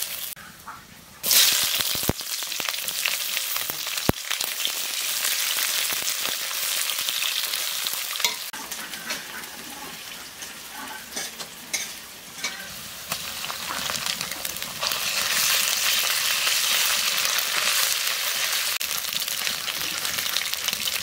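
Sliced onions and whole spices sizzling in hot oil in an iron kadai over a wood fire, the hiss jumping up suddenly about a second in, with the clicks of stirring.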